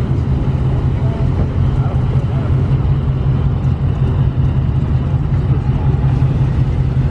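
Dodge Charger Scat Pack 392's 6.4-litre HEMI V8 idling, a steady low rumble with no revs.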